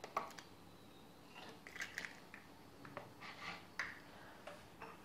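Faint clicks and taps as a raw egg is emptied from its shell into a plastic bowl of water, the sharpest click just after the start and a few softer ones later.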